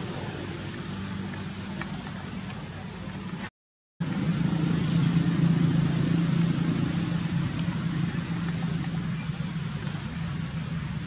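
Steady low drone of an engine, typical of a motor vehicle running. About three and a half seconds in, the sound cuts out completely for half a second, and the drone is louder for a few seconds afterward.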